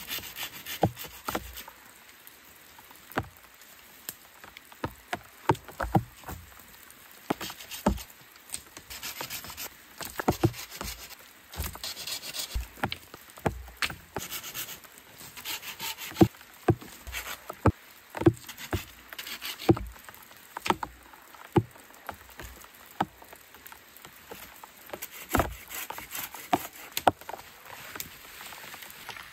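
Dead branches and sticks cracking and snapping many times at irregular intervals, with twigs and brush rustling and scraping between the cracks, as deadwood is pulled loose and broken by hand for firewood.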